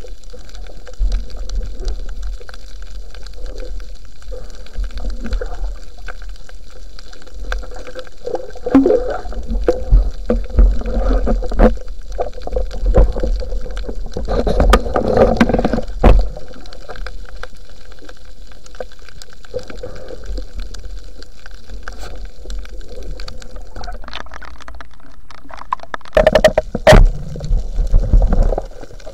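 Underwater sound picked up by a diving camera: a steady low water rumble with scattered sharp clicks, and louder gurgling bursts of water movement in the middle and again near the end.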